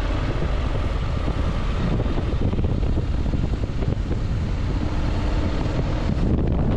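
Wind buffeting the microphone: a steady, wavering rumble.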